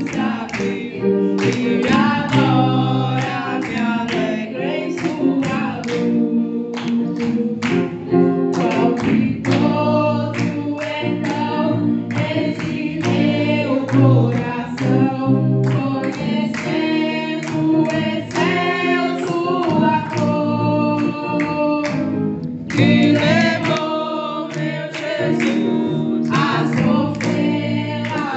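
A worship hymn sung into a microphone and played through the church's loudspeakers, with several voices singing together in continuous, held notes.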